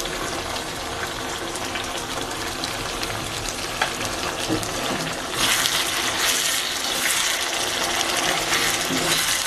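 Chicken and mustard paste frying in a pan: a steady sizzle that turns louder and brighter about five seconds in, with a few light clicks.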